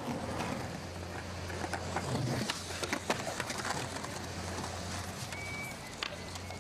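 Skateboards rolling and clacking on concrete: scattered sharp knocks of boards and wheels over rolling noise, with a steady low hum underneath.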